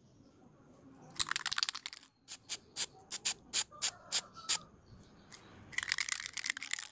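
High-pitched chirps from a small animal. A quick flurry comes about a second in, then single chirps at about four a second, then another flurry near the end.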